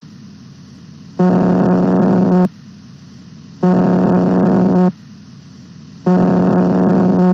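Steady static hiss broken by three loud, harsh electronic buzzes, each a little over a second long and evenly spaced, ending abruptly.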